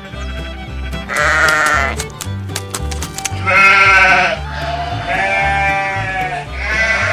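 Four drawn-out sheep bleats, each about a second long, the second the loudest, laid over background music with a repeating bass line and clicking percussion.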